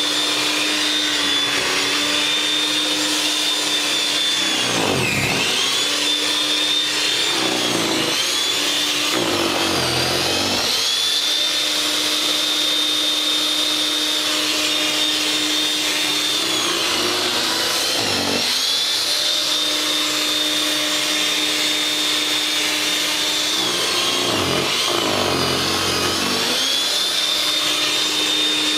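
WEN 5662 13.5-amp electric single-stage snow thrower running with a steady motor hum and high whine. The pitch sags and recovers several times as the auger takes in snow and the motor slows under the load.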